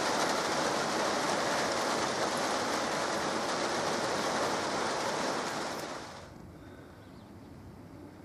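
Steady rain falling, an even wash of sound. About six seconds in it drops away to a much quieter, faint steady hiss.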